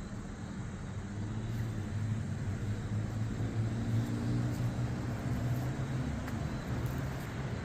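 A motor vehicle's engine rumbling, growing louder from about a second and a half in and easing slightly near the end.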